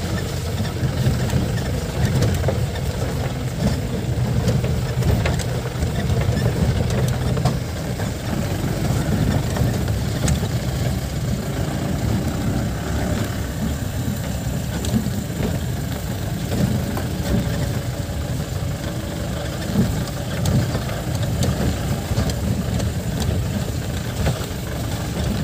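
Jeep engine running as the vehicle drives over a rough, potholed dirt track, heard from inside the cab, with frequent small knocks and rattles from the body.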